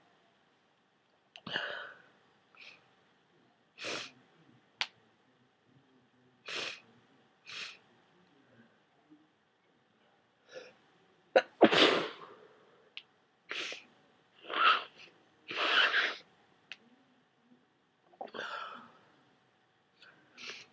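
A person with a head cold sneezing over and over: wet, messy sneezes, about a dozen short bursts with brief pauses between them, the loudest about halfway through.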